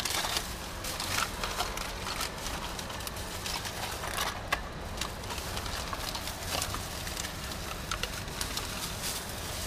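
Thin plastic shopping bag rustling and crinkling in irregular crackles as a hand rummages through it.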